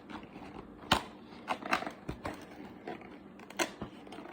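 An advent-calendar packaging container being handled and pried open from the side. A sharp click comes about a second in, followed by scattered crackles and clicks.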